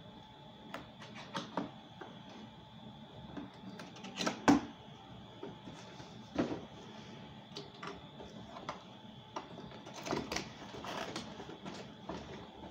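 Cardboard box being pried open and handled: irregular scratches, taps and rustles of cardboard and packaging, with one louder snap about four and a half seconds in.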